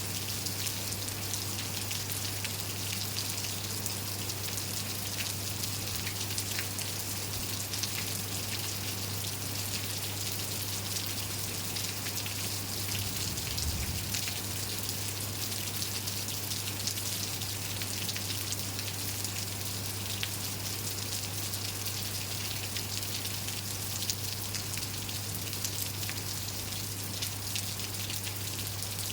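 Steady rain falling, with many single drops ticking on nearby surfaces over the even hiss. A constant low hum runs underneath.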